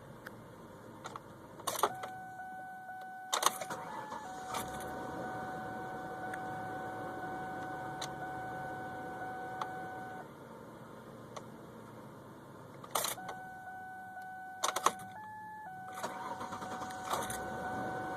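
A hard-starting car being started twice. Sharp clicks, like the ignition key being turned, are each followed by a steady whine with a running hum for several seconds. The first run cuts off about ten seconds in; the second starts again near the end.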